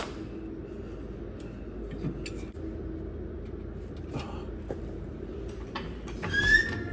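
A few faint metallic clicks and taps over a steady low hum, then music begins near the end.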